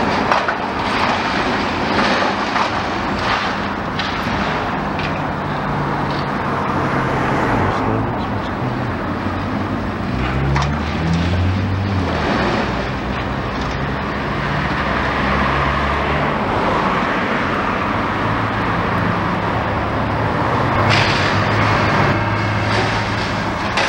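High-reach demolition excavator's diesel engine running under hydraulic load, its pitch shifting as the boom and crusher jaw work, over the crunching and clatter of brick and masonry being broken from the wall. A louder burst of crunching and falling debris comes near the end.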